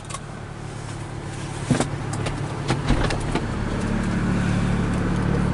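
BMW 335i's twin-turbo straight-six running under way, heard from inside the cabin and growing steadily louder. A few short knocks come about two and three seconds in.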